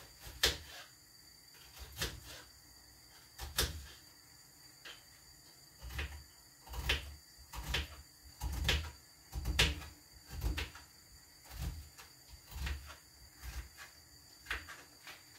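Knife cutting through slightly frozen pork sausage and knocking on a cutting board, a dozen or so separate chops about a second apart, coming more steadily from about six seconds in.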